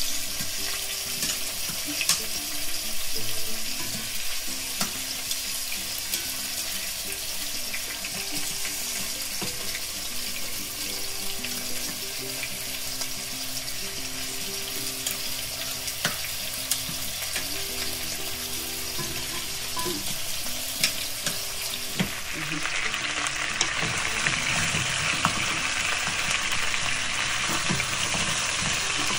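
Oxtail pieces sizzling as they brown in hot oil in a nonstick pot, with occasional sharp clicks of metal tongs turning the meat. About 22 seconds in the sizzling gets louder and brighter as the browned pieces are stirred with a wooden spoon.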